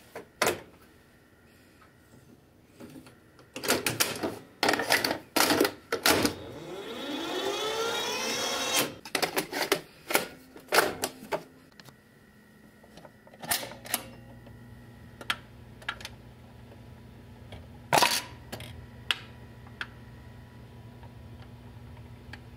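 Mechanical clunks and clicks from a vintage Zenith VCR's piano-key transport buttons, with a whirr that rises and falls in pitch partway through. About halfway in, a Garrard record changer's motor starts a steady low hum, with a few sharp clicks from its tonearm mechanism as it cycles toward playing the record.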